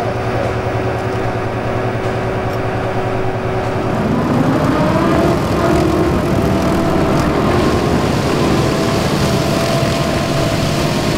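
Tractor engine running a sugar beet defoliator. About four seconds in, the pitch rises as the machine speeds up, then it holds steady at the higher speed.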